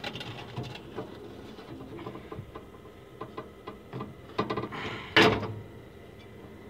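Light knocks and clicks of a car radiator being set into its mounts in the core support, with one louder scraping knock about five seconds in.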